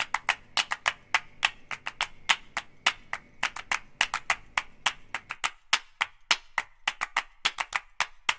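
Rapid, irregular sharp clicks, several a second, over a low hum that stops about five and a half seconds in.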